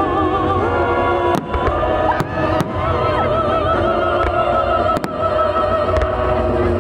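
Fireworks going off in several sharp bangs over continuous music with long held notes.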